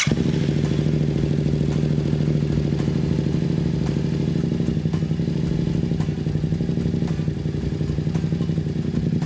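Yamaha FZ-07 (MT-07) 689 cc parallel-twin engine idling steadily just after start-up. It is run briefly after an oil change so the fresh oil fills the new, dry oil filter.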